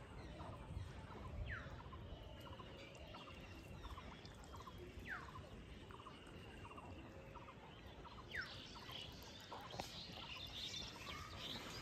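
Birds calling faintly: short whistles that fall sharply in pitch, repeated every few seconds, among small chirps and trills. The chirping grows busier near the end, over a low rumble.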